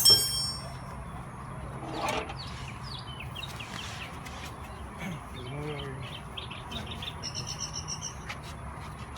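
A sharp metallic clank that rings briefly at the start, a duller knock about two seconds in, then birds chirping in quick repeated notes.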